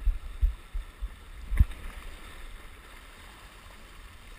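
Small sea waves lapping and splashing against shoreline rocks, with a few dull low thumps on the microphone in the first two seconds.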